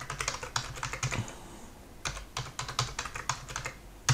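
Typing on a computer keyboard: two quick runs of keystrokes, as a password is typed and then typed again to verify it, with a single sharper key click near the end.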